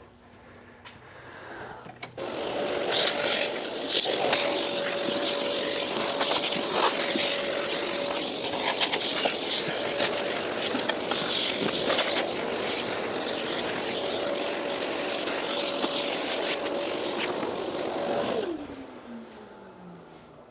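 A vacuum switches on about two seconds in and runs steadily, sucking sawdust out of a wood planer with scattered rattles and clicks of chips going up the hose. It switches off near the end, its motor whine falling as it spins down.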